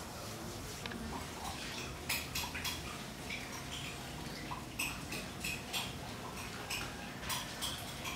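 Irregular light clinks and taps of dishes and utensils being handled, a dozen or so short sharp clicks starting about two seconds in, over a faint steady room hum.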